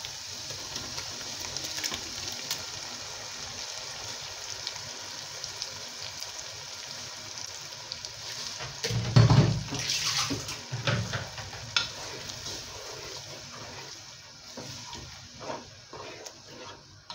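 Blended pepper purée sizzling steadily in hot oil in a large pot. A louder clatter comes about nine seconds in, and light spoon clicks against the pot as it is stirred near the end.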